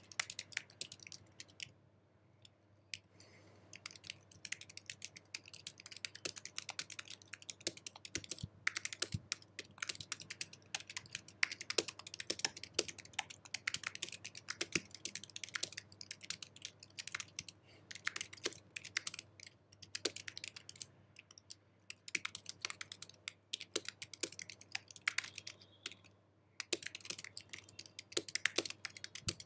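Fast typing on an Apple keyboard: a dense run of light key clicks, with short pauses about two seconds in and again near 26 seconds.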